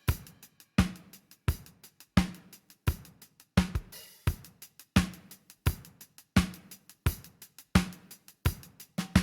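Drum kit beat playing steadily: kick and snare alternate about every 0.7 seconds, with hi-hats ticking between them.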